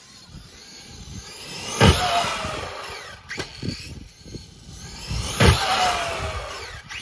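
Traxxas E-Revo 2.0 RC truck's electric motor whining at speed as it passes close twice, each pass building to a loud peak and then dropping in pitch as it goes by, with a few short knocks in between.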